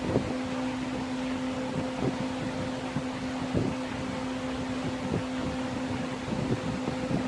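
A steady machine hum, one constant low tone with an airy hiss over it, as from a fan or blower motor running, with a few faint light taps now and then.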